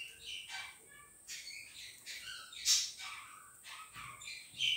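Small birds chirping and calling: a run of short, irregular chirps, with one louder, sharper call about two and a half seconds in.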